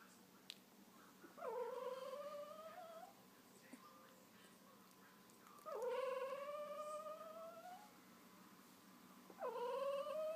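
Two-week-old wolf hybrid puppy whining: three long whines, about a second and a half in, about six seconds in and near the end, each dipping in pitch at the start and then slowly rising.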